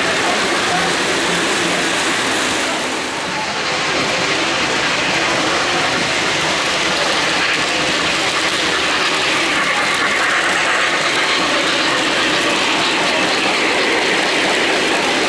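O-gauge model trains rolling on three-rail track: a steady clatter and rumble of metal wheels on the rails, dipping briefly about three seconds in.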